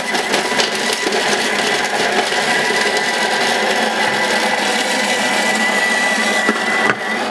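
Thermomix food processor's blade chopping ginger, onion and garlic at high speed: a loud, steady whir with a thin high whine on top. It stops abruptly near the end.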